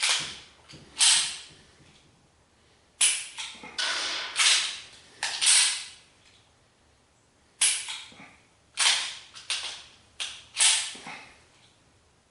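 A 9mm pistol dry-firing on a laser training cartridge: about a dozen sharp metallic clicks of the action, in irregular groups a fraction of a second to a couple of seconds apart.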